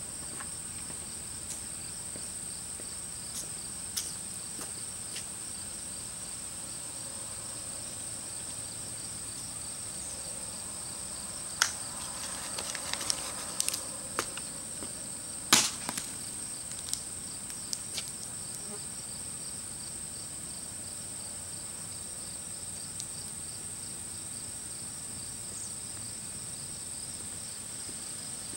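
Steady high-pitched chorus of crickets and other insects. A short run of sharp knocks and clatters comes about twelve seconds in, the loudest a single hard clack a few seconds later, with a few lighter knocks after it.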